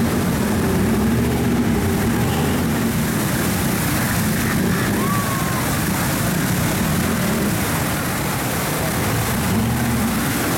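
Many pressurised water jets from a pipe-frame truck-wash shower spraying hard onto a pickup truck's body: a steady, loud rushing hiss of water.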